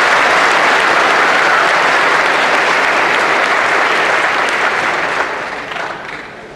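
Audience applauding, a dense, steady clapping that dies away over the last second or so.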